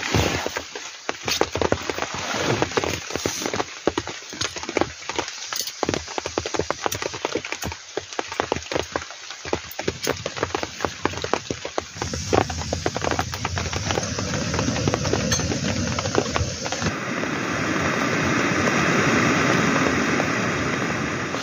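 Rain falling, with many sharp crackles and clicks over it at first. About twelve seconds in it settles into a steadier hiss, which grows louder near the end.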